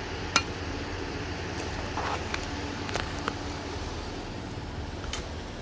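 A 2007 Chrysler Town & Country minivan's engine idling steadily, with a few scattered crunching footsteps on a gravel road.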